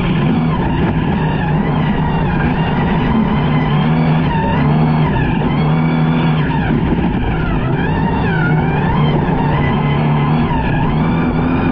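Toyota Hilux DKR T1+ rally truck's twin-turbo V6 driven hard, its revs rising and falling again and again through gear changes, over a constant rush of tyre and gravel noise on a dirt road.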